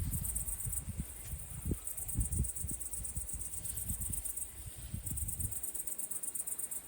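Crickets chirping in a fast, high-pitched pulsing trill that briefly fades about a second in and again near the middle, over irregular low thumps on the microphone.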